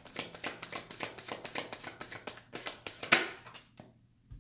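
A deck of tarot cards being shuffled by hand: a quick run of papery card clicks, with a sharper snap about three seconds in, after which only a few scattered taps follow.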